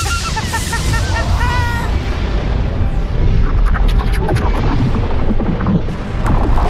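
A man's cackling laugh over the first two seconds or so, on top of a film score and a deep, continuous rumbling with booms. This is a cartoon sound effect of the world being destroyed, and the rumble swells again near the end.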